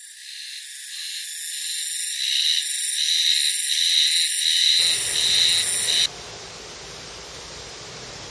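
High-pitched insect song that swells in, pulsing about twice a second, then cuts off abruptly about six seconds in. A steady, even rushing noise of open-air background takes its place.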